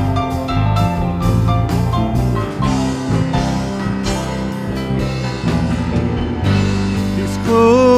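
Live church worship band playing an instrumental passage on keyboard, acoustic guitar and drums, with a voice starting to sing near the end.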